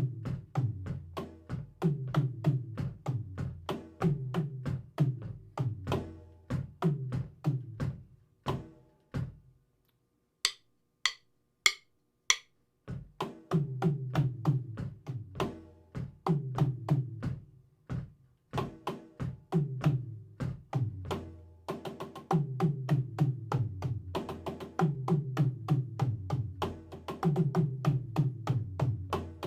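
Drum kit played in a steady rhythmic groove by a beginner drummer. About nine seconds in the playing stops, a few sharp clicks come about half a second apart, and the groove starts again about four seconds later.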